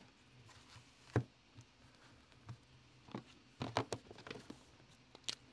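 Scattered light taps and clicks of a clear plastic card holder and a cardboard card box being handled. There is one sharp tap just after a second in, a quick cluster of clicks a little past the middle, and another click near the end, over a faint steady hum.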